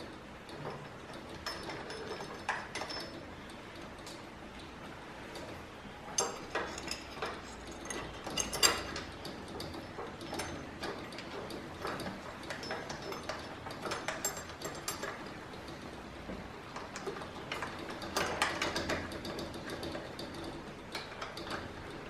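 Small metal clicks and scrapes of an Allen key turning the short bolts of the clamps that hold the filter module to its head, coming in irregular clusters, the loudest about eight or nine seconds in.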